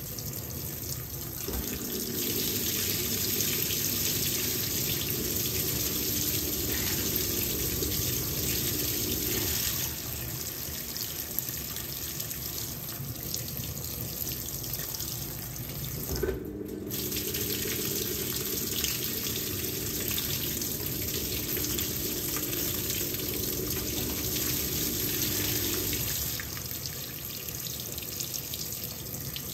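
Fisher & Paykel WL8060P1 top-loading washing machine filling: water rushes into the drum continuously. For two stretches of eight to ten seconds, one soon after the start and one after a faint tick past the middle, the rush grows louder and a steady low hum joins it.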